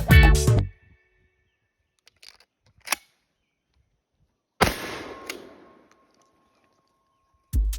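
A single shotgun shot goes off suddenly and its report dies away over about a second, preceded a couple of seconds earlier by a faint click.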